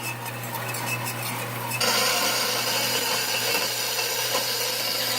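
Metal-cutting bandsaw running with a steady motor hum. About two seconds in, the blade bites into the steel of an old bolt-cutter handle and a louder hiss of cutting sets in and carries on.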